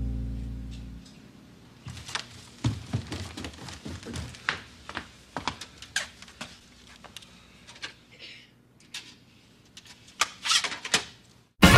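Scattered small knocks, clicks and footfalls of someone moving about a room and handling objects at a shelf, after a low music note dies away in the first second.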